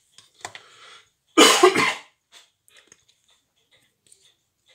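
A person coughs once, loudly, about a second and a half in, after a shorter, quieter breath sound just before it.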